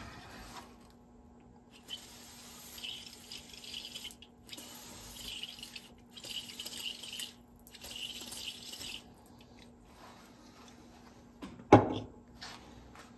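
Aerosol contact cleaner sprayed onto electrical connectors in four hissing bursts of about a second and a half each, deoxidizing them; then a single sharp knock near the end.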